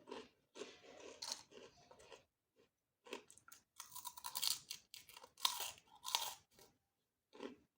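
Crunchy food being bitten and chewed close to the microphone: irregular crisp crunches, with a short pause about two seconds in and the loudest crunching in the second half.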